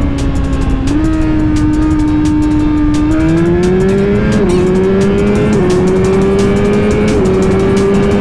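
2022 Suzuki GSX-R1000R inline-four engine under way. It runs at a steady pitch for the first few seconds, then pulls hard with the revs climbing, dropping back sharply at three quick upshifts.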